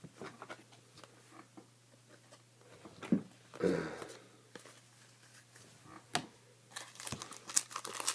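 Trading cards and a foil card-pack wrapper being handled: scattered light clicks and card slides, a knock about three seconds in, and crinkling wrapper rustle building near the end.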